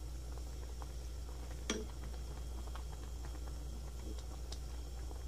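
Low steady hum of a quiet kitchen, with one light click about two seconds in and a couple of fainter ticks near the end.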